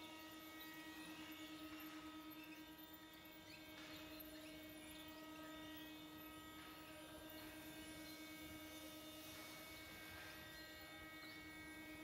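Faint steady hum: a low drone with a stack of evenly spaced higher overtones.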